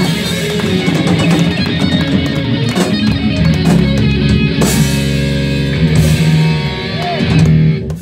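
Live rock band playing loud, with distorted electric guitars, bass guitar and drums. The band stops sharply at the very end.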